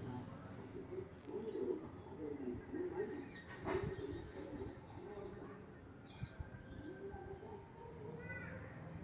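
Low, wavering bird calls that repeat through most of the stretch, with a couple of sharp clicks and a short high chirp near the end.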